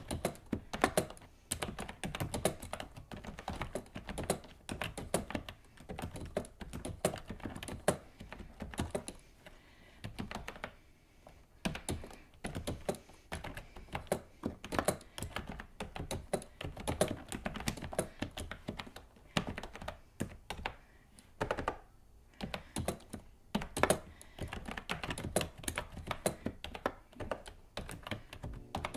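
Typing on a typewriter-style keyboard with round keycaps: a steady run of clean, crisp clacking keystrokes, thinning briefly about ten seconds in.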